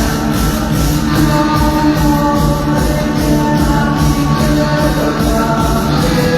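Rock music with a steady beat, played loud through a sonidero sound system.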